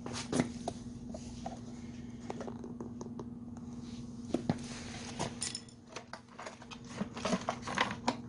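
Handling noise: scattered clicks and light knocks as the camera is moved and hands take hold of a backpack brush cutter by its plastic fuel tank, busier in the last two seconds, over a steady low hum.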